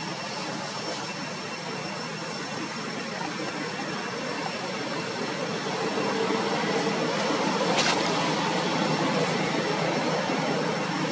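Steady rushing noise of vehicle traffic on a nearby road, growing louder about halfway through, with one short click about two-thirds of the way in.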